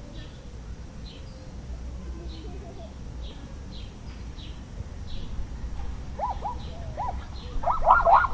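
Zoo animal sounds: a bird's short high chirps repeat about twice a second over a steady low rumble. From about six seconds in, an animal starts a run of rising-and-falling yelping calls that grow louder and come faster near the end.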